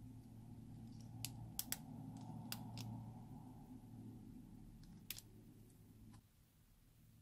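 Scattered light, sharp clicks and taps as a small plastic pick scrapes lipstick from its metal tube and dabs it onto slime in a glass dish, most of them in the first three seconds. Under them is a low steady hum that cuts off about six seconds in.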